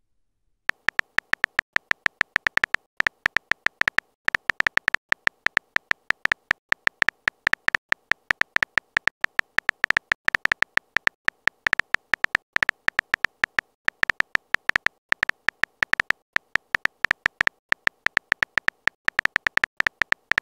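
Phone keyboard typing sound effect: a rapid, uneven run of short high-pitched key-tap clicks, several a second, as a text message is typed out letter by letter.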